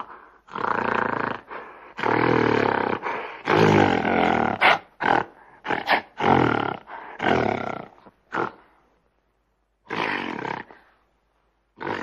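Gorilla roaring in a rapid run of loud, rough calls of a second or less each for about eight seconds, then after a pause two more short calls near the end.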